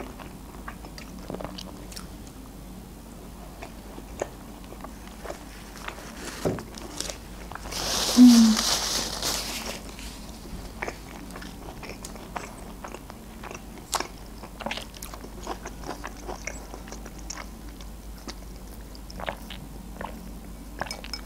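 Close-up chewing and mouth clicks of a person eating shawarma and French fries, with a louder hiss lasting about two seconds, some eight seconds in.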